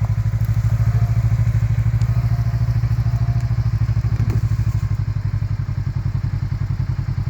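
Kawasaki Teryx KRX side-by-side's engine running at low, steady revs with an even, rapid throb, under load as the UTV pulls slowly on a buried steel rod to drag it out of the ground.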